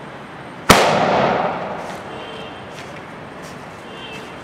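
A 3-inch sky shot firing: one loud bang about a second in, the lift charge sending the shell up out of its tube, echoing away over about a second.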